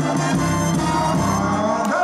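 Dance music playing, with a moving bass line, sustained chords and light percussion.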